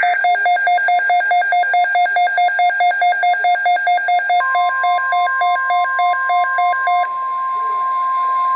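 Emergency alert signal tones: rapid, evenly spaced electronic beeping, about three to four beeps a second, that stops about seven seconds in. A steady single alert tone near 1 kHz, the NOAA Weather Radio warning alarm tone, comes in about four seconds in and holds.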